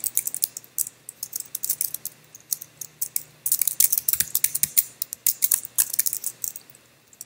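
Typing on a computer keyboard: irregular runs of key clicks, with short pauses about three seconds in and near the end.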